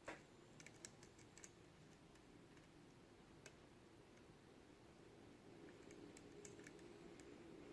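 Faint, scattered clicks of a lock pick working the pin stack of a Mul-T-Lock Jr. padlock core, a small cluster about a second in and more near the end.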